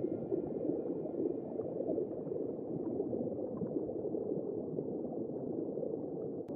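Steady bubbling, gurgling water noise, low and dense, with the last of background music fading out in the first couple of seconds.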